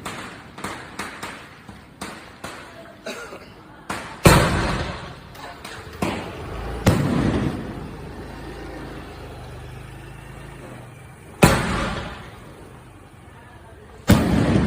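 A 2-inch multi-shot fireworks cake firing: a quick string of smaller bangs in the first four seconds, then single loud booms with a long rolling echo about four, six, seven, eleven and a half and fourteen seconds in.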